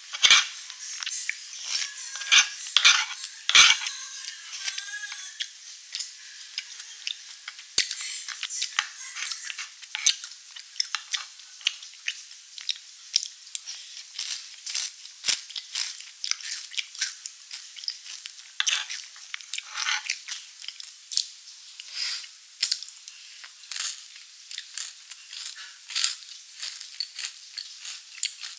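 Close-miked eating sounds: a metal spoon clicking and scraping on a bamboo tray, with a few sharper clicks in the first four seconds. A long run of wet, crackly mouth sounds follows as melted ice cream is eaten off the spoon.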